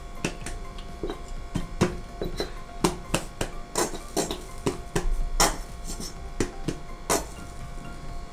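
Irregular clicks, taps and rubbing of kitchen handling over a frying pan as mustard is squeezed from a plastic squeeze bottle onto a tortilla and a hand works over it.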